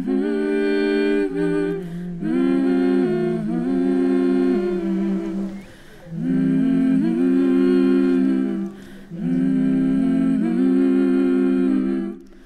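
Unaccompanied voices humming a slow tune in harmony, without words, in held phrases of about three seconds with short breaks between them.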